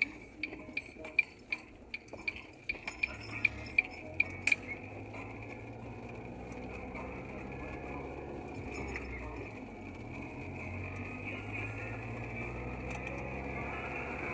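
Car turn-signal indicator ticking about three times a second, stopping about four and a half seconds in. After it, the car's steady low rumble and the hiss of tyres on the wet road, heard from inside the cabin.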